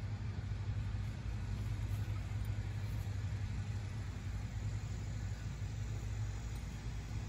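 A steady low rumble with a faint even hiss above it, unchanging throughout.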